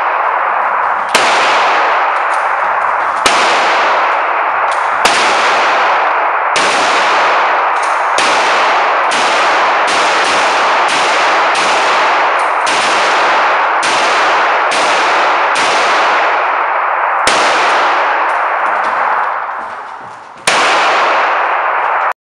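Pistol shots on an indoor shooting range, about twenty of them at irregular intervals, coming faster in the middle, about one and a half a second. Each crack is followed by a long echoing ring in the hall.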